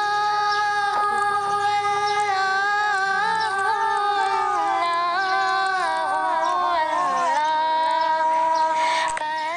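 Background music: a woman singing a slow melody in long, drawn-out notes that glide between pitches.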